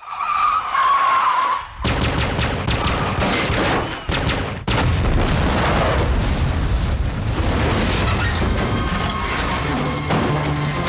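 Action-film sound effects: a sudden loud blast about two seconds in starts a run of explosions, rapid gunshots and a car crashing over, with a motorcycle engine running beneath.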